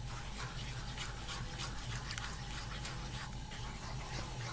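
Mushroom and white wine sauce simmering in a pan over the heat, with many faint crackles and pops over a steady low hum.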